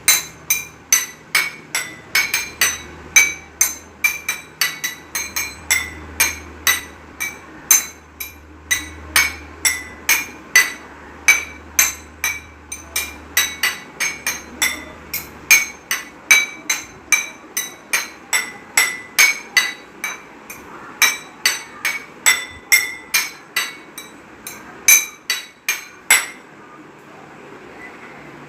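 Water-filled glasses struck one after another, about two to three clear ringing clinks a second, stopping shortly before the end.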